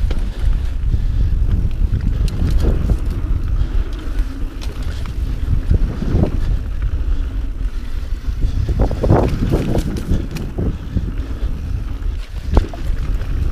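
Wind buffeting the camera microphone on a mountain bike descending a dirt singletrack, over the steady rumble of the tyres on the trail, with the bike rattling and knocking over bumps, several knocks in quick succession about two-thirds of the way through.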